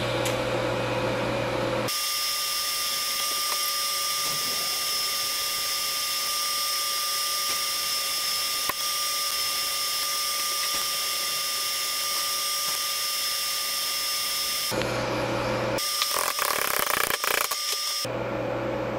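TIG welding arc on steel pipe and plate: a steady hiss with a thin high whine that lasts about thirteen seconds and then stops. Metal knocks and clinks follow as the hot part is handled and turned.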